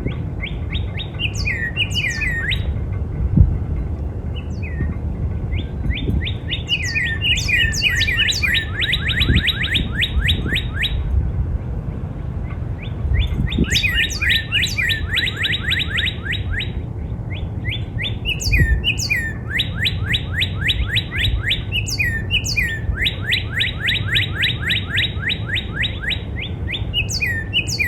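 Northern cardinal singing: repeated phrases of clear down-slurred whistles that speed up into fast trills of the same note, in bouts of several seconds with short pauses between. A steady low rumble runs underneath.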